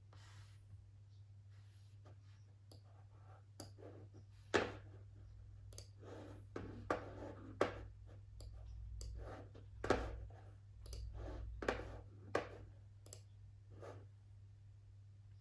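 Desk-work sounds: irregular clicks and taps, several louder, mixed with short scratchy strokes, of the kind made by a stylus writing on an iPad and a mouse being clicked, over a steady low hum.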